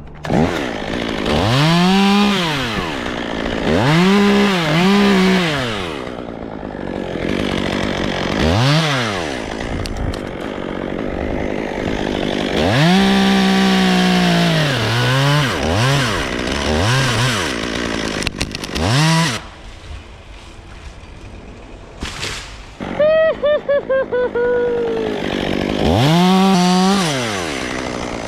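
Two-stroke chainsaw revved up hard and let back down again and again, each rev a rising then falling engine note. It drops lower for a few seconds past the middle. Near the end it gives a short stutter of pulses falling in pitch, then revs up once more.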